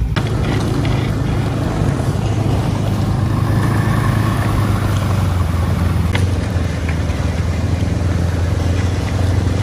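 Ski-Doo snowmobile engine running steadily under way, a constant low drone.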